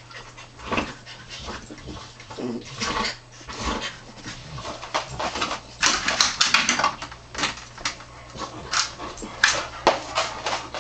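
A Jack Russell terrier and a springer spaniel play fighting on a shaggy blanket: a run of short dog vocal noises, snuffles and scuffling. The loudest of it comes about six to seven seconds in.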